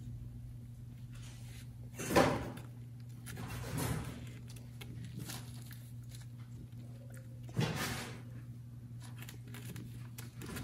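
Brief rustling and bumping as a cat and kitten shift about in a wicker basket bed on a crinkly disposable pad: three short noises, about two seconds in, near four seconds and near eight seconds, over a steady low hum.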